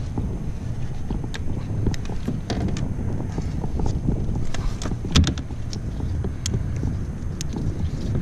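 Steady wind noise on the microphone with scattered clicks and knocks as a freshly caught speckled trout is handled and measured on a small boat's deck; the sharpest knock comes about five seconds in.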